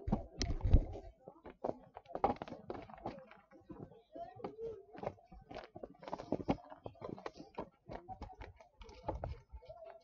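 Faint voices with scattered clicks and knocks, a few every second.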